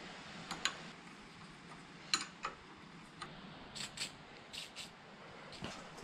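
Light clicks and clinks of small hard parts being handled and set down, about ten of them at uneven intervals, over a faint steady hiss.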